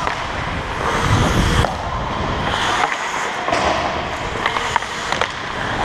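Ice hockey skate blades scraping and carving on rink ice during play, with a few short sharp clacks in the second half.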